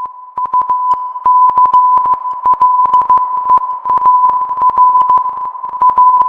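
Mock emergency alert system attention tone: a single loud, steady beep-like tone, peppered with many sharp crackling clicks.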